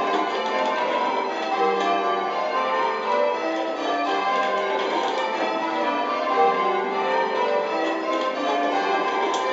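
Eight church bells ringing changes in spliced surprise major, struck in quick, unbroken succession with their tones overlapping, heard from the ringing chamber below the bells.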